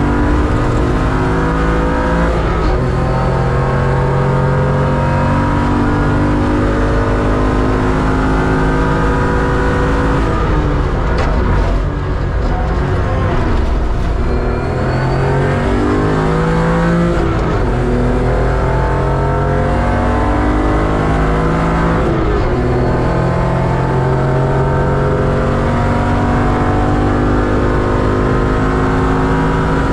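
BMW 325 Cup race car's engine, heard from inside the car, pulling hard on track. Its pitch climbs and drops back sharply at each upshift, and it falls away through downshifts under braking around the middle.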